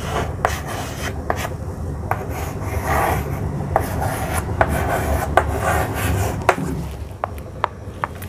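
Chalk scratching on a chalkboard as words are written by hand, with sharp irregular taps where the chalk strikes the board at each stroke. It gets quieter in the last second or so.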